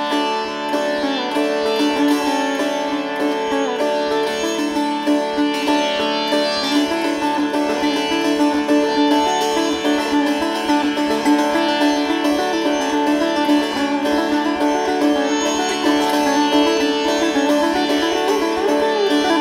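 Background music: a plucked string instrument playing sliding notes over a steady drone.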